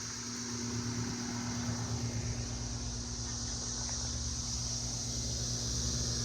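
1989 Bryant Aero Quiet System 4-ton central air conditioner condensing unit running: a steady low hum from its sound-blanketed compressor under the rush of a very powerful condenser fan, which makes the compressor sound quiet.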